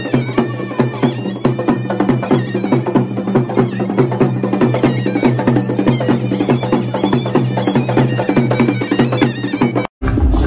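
Traditional Hausa drum-and-pipe music: barrel drums beaten with curved sticks in a fast, steady rhythm under a shrill, bagpipe-like reed pipe. It breaks off abruptly near the end.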